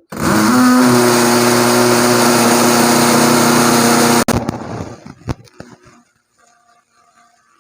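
Cordless drill spinning up and boring into a brick wall for about four seconds, its motor whine steady under the grinding of the masonry, then stopping abruptly. A couple of short knocks follow.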